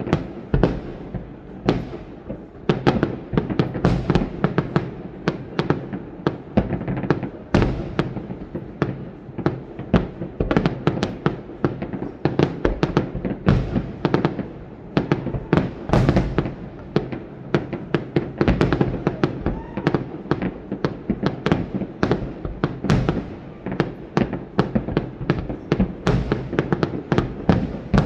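Aerial fireworks display: a dense, unbroken barrage of shell bursts, bangs and crackling pops, several a second.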